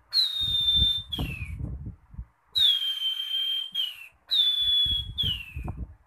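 A man whistling through pursed lips in imitation of the common iora (cipo) call. There are three phrases, each a long, high, steady note that ends in a short falling note.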